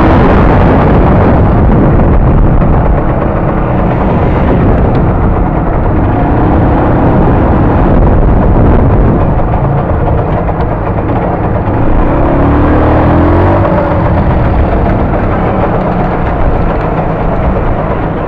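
Scooter engine running while riding, under a heavy rumble of wind on the microphone; its pitch rises and falls a few times as it speeds up and slows, and the sound eases a little near the end.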